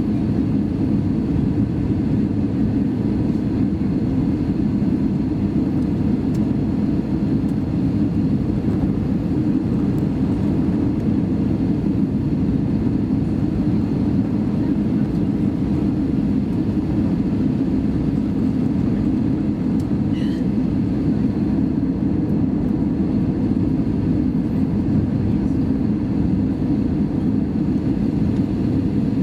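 Steady cabin noise inside a Lufthansa Airbus A320 in flight: an even, unchanging rush of engine and airflow noise, deepest in the low range.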